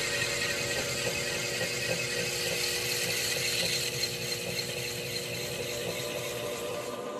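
Laboratory precision saw running: a steady motor whine over the hiss of a thin circular blade cutting a small sample clamped in its arm.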